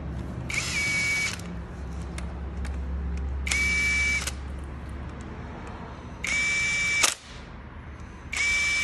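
Cordless impact tool running bolts on an engine's cylinder head: four short bursts of steady motor whine, each under a second long, a few seconds apart.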